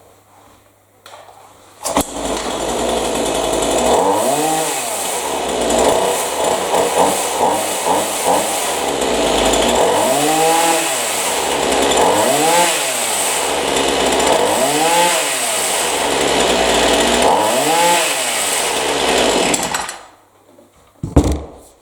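Partner two-stroke chainsaw starting about two seconds in, then idling between throttle blips. It is revved up and back down again and again, the pitch rising and falling each time, and it is shut off near the end. It revs up without bogging down after the high-speed carburettor adjustment, which the owner judges to have worked.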